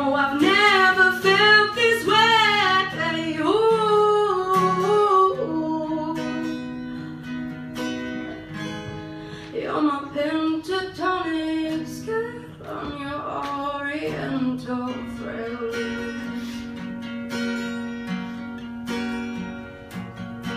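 A solo singer performing live with an acoustic guitar accompaniment. The voice wavers on long held notes in the first few seconds and comes back in phrases later, over sustained guitar chords.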